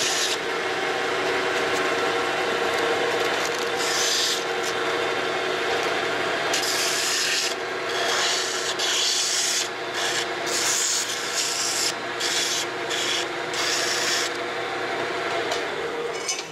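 Wood lathe running while sandpaper is held against a thin spinning walnut spindle for final sanding. A steady motor hum runs under a hissing rasp that comes and goes as the paper is pressed on and eased off.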